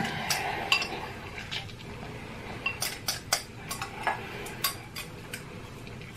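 Close-up eating sounds: noodles being slurped and chewed, with irregular sharp clicks and taps of chopsticks against a metal tray.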